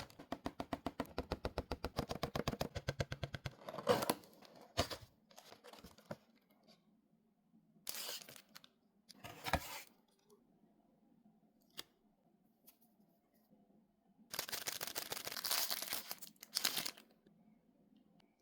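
Packaging of a blind-box toy being torn open and handled: a fast run of small ripping ticks for about three seconds, then scattered rustles and clicks, and a longer stretch of crinkling near the end.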